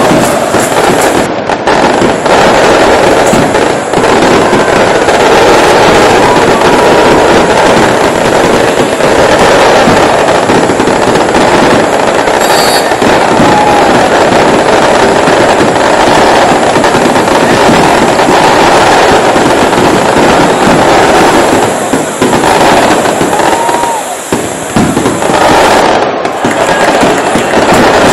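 Large stadium crowd of football fans cheering and chanting, very loud and distorted, with dense crackling throughout.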